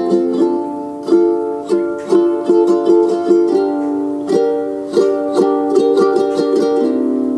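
Background music: a gentle tune of plucked-string notes and chords, repeated plucks over held tones.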